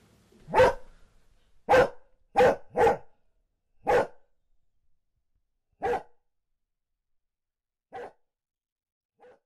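A dog barking: about eight single barks, the first few close together, then further apart and growing fainter.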